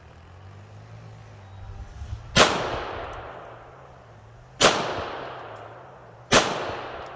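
Three handgun shots about two seconds apart, each report followed by a long echo that fades away.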